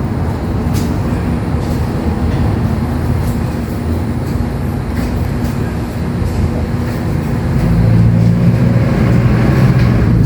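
A steady low mechanical drone with a hum, growing a little louder near the end.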